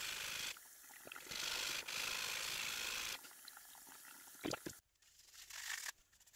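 Cast-iron sole of a Stanley 9 1/4 block plane being lapped on wet sandpaper over glass to flatten it: two long gritty scraping strokes, then a sharp knock about four and a half seconds in. Near the end, faint wiping of the plane body with a paper towel.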